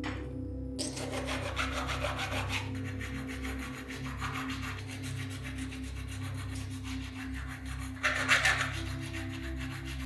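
Steady abrasive rasping, as of filing or sanding, starting about a second in and growing louder for a moment about eight seconds in, over soft background music.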